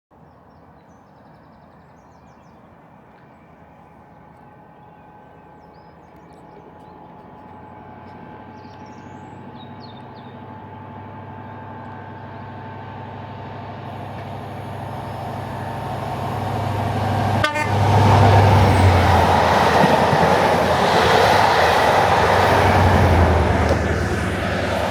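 Class 43 HST approaching from far off, its sound building steadily for about 17 seconds before it passes at speed. As it passes there is a loud diesel power-car drone and a rush of wheels on rail, marked by a single sharp knock just before it reaches its loudest.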